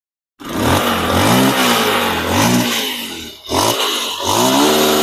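Car engine revved repeatedly, its pitch rising and falling several times, with a brief dip about three and a half seconds in.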